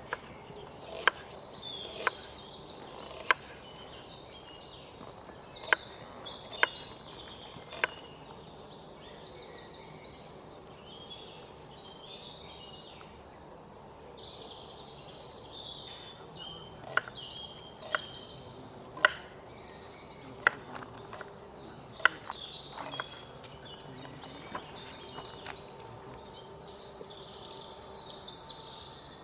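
Birds chirping and calling throughout, over outdoor background noise. About a dozen sharp knocks come roughly a second apart in two runs, in the first eight seconds and again from about 17 to 22 seconds in: chopping strokes.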